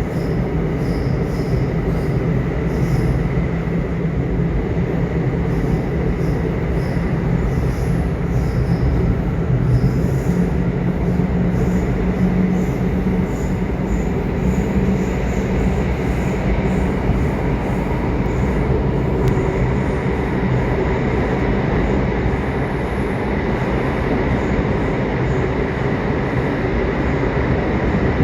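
Subway train running: a steady rumble of wheels and motors with a thin high tone held above it and faint light ticks scattered through.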